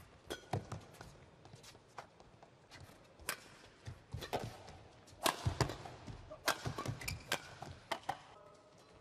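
Badminton rally: sharp smacks of rackets striking the shuttlecock, mixed with players' footfalls and short shoe squeaks on the court mat, busiest from about five seconds in.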